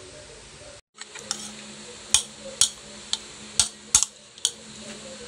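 A utensil clinking sharply against a bowl while bitter gourd and radish salad is tossed, about seven clinks at uneven half-second intervals, over a low steady hum.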